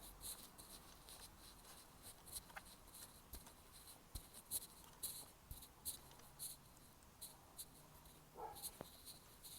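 Faint, irregular light clicks and scratches, two or three a second, of small metal parts being handled and turned by hand as the new gear shift lever is threaded onto its linkage rod.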